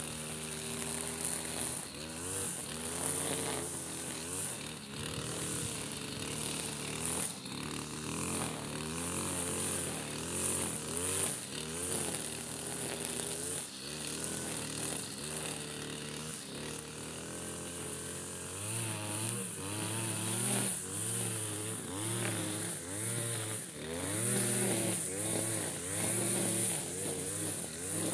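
Backpack two-stroke brush cutter running as it cuts grass, its engine speed rising and falling again and again, about once a second. It is louder in the last third.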